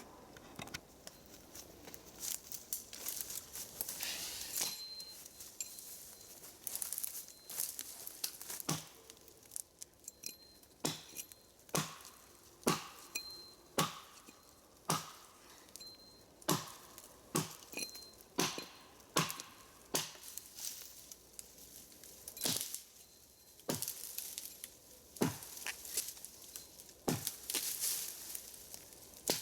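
Axe chopping into a felled tree's wood by hand, sharp blows landing roughly once a second at an uneven pace, some in quick pairs.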